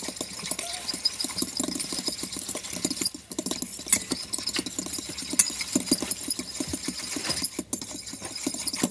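Metal fork scraping and clinking against the bottom of a stainless steel bowl in quick repeated strokes, stirring borax into water.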